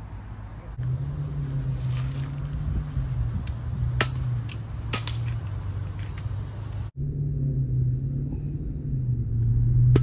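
A steady low engine rumble, like a motor vehicle running, with two sharp clicks about four and five seconds in. It cuts out for an instant near seven seconds, then carries on.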